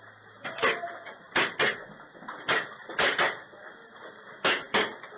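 Airsoft guns firing single shots, about nine sharp cracks at uneven intervals, some coming in quick pairs.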